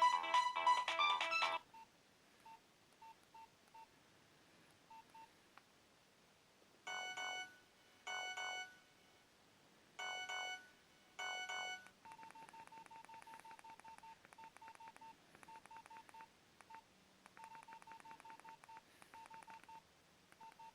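Nokia 2310 mobile phone's speaker playing electronic ringtones. A loud melody cuts off about a second and a half in. Quieter electronic tones follow: a few faint single beeps, then four short chiming notes, then a fast trilling run of beeps in groups.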